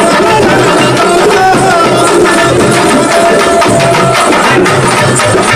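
Burrakatha folk hand drums playing a brisk, steady rhythm, loud and continuous.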